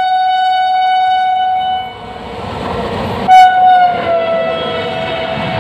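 WAP-7 electric locomotive's horn sounding a long steady blast as the express approaches, then stopping. A second horn blast about three seconds in is the loudest moment and falls in pitch as the locomotive passes, over the rising rumble and clatter of the coaches running through at speed.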